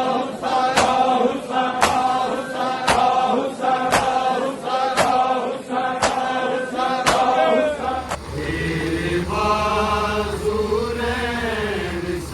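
A group of men chanting a noha together, with a sharp slap about once a second in time with the chant: the rhythmic chest-beating of matam. About eight seconds in, this gives way to a single male voice singing a long, wavering line over a low hum.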